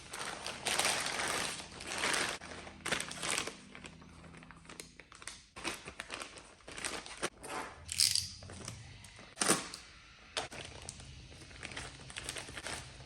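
Packaging being handled and torn open by hand: irregular crinkling and tearing with several short sharp clicks.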